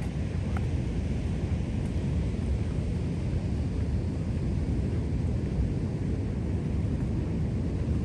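Steady wind rumbling and buffeting on the microphone, with no break.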